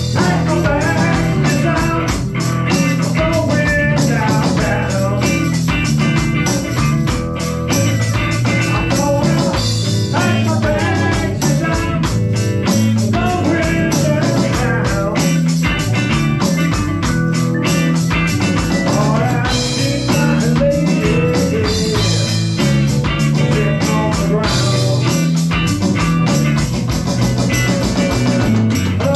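Small rock band playing live: electric guitars, keyboard and drum kit together at a steady beat.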